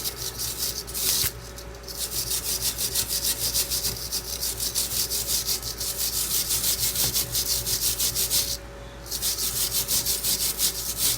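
A fresh weld on a thin steel chair leg being scrubbed clean by hand: a rapid back-and-forth rasping of a tool on the metal, about four strokes a second, stopping briefly twice.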